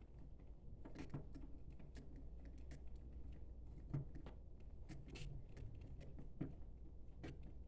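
Scattered light clicks and taps of small parts being handled, a few of them sharper, over a steady low hum.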